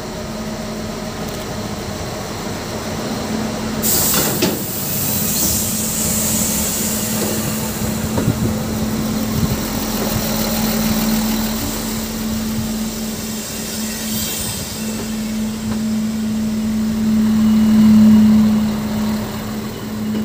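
Trains moving through a station: a steady engine hum that grows louder near the end, a loud hiss of air about four seconds in and a shorter one about fourteen seconds in, and wheels knocking over the rail joints around eight to nine seconds in.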